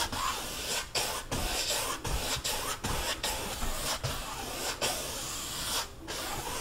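A paintbrush scrubbing paint across a stretched canvas: a swishing hiss in repeated strokes, with short breaks between them.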